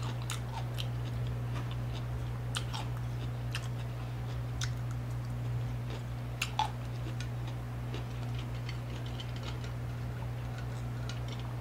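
Close-miked mouth sounds of a person chewing food: scattered soft, wet clicks and smacks, a few louder ones about six and a half seconds in, over a steady low hum.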